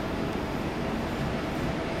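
Alfa Pendular electric tilting train pulling slowly into the station: a steady rumble of wheels on rails, with a faint steady whine running under it.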